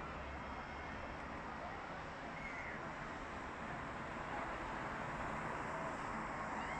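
Steady hubbub of a large outdoor crowd, with a few faint short calls rising above it.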